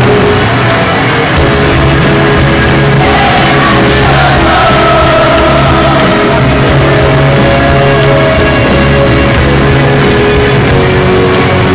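A live rock band with electric bass, grand piano and guitars playing in a stadium, recorded on a phone from the crowd. A sung melody comes in about three seconds in.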